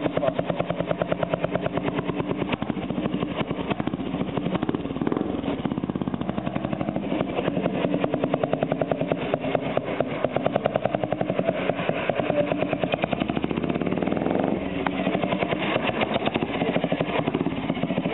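Junak M10's single-cylinder four-stroke engine running with a fast, even beat while the chopper is idled and ridden slowly around, the pitch shifting slightly now and then with the throttle.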